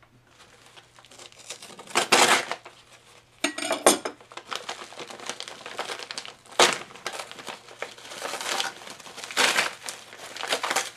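A brown kraft-paper mailer being pulled open by hand, the paper crinkling and tearing in a series of irregular loud rustles.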